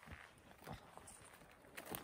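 Faint footsteps through dry grass and brush: a few soft, irregular steps.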